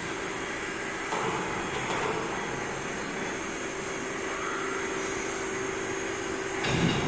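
Steady electric-motor drone of a hydraulic butt fusion machine's equipment running, with one constant hum. A louder low rumble comes in near the end.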